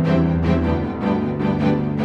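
Background music: held low notes under a steady beat.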